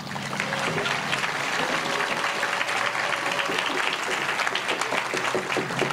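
Audience applauding, building up over the first half second and then holding steady as a dense patter of many hands clapping, with a few faint voices mixed in.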